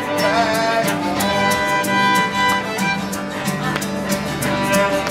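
Live band playing a song: a held, sliding melody line over a steady beat of sharp strokes about four a second.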